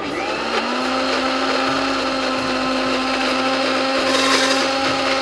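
Electric mixer grinder (mixie) switched on and running with soaked urad dal, rice and a little water in its stainless steel jar, grinding them into vada batter. The motor comes up to speed within about half a second, then runs at a steady whir.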